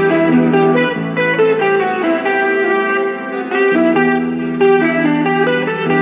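Instrumental music with a plucked-string melody over held notes, an MP3 played back by an Amiga 4000 through a Prelude Zorro II sound card.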